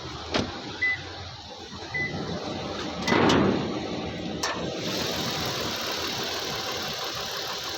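A few clicks and two short beeps, a louder rush about three seconds in, then the Toyota Land Cruiser Prado's engine running steadily with a hiss, as the car is run for its air-conditioning refrigerant recharge.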